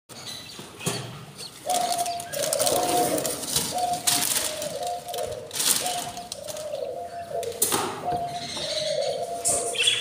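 Cage birds calling: sharp chirps and bursts of flutter every second or two, over a lower two-note call (a held higher note dropping to a lower one) that repeats about once a second.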